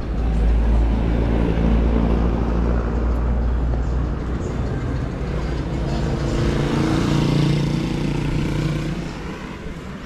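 Street traffic: a deep engine rumble from a passing bus or heavy vehicle, then a small motorcycle engine passing close, loudest about seven seconds in and fading away by about nine seconds.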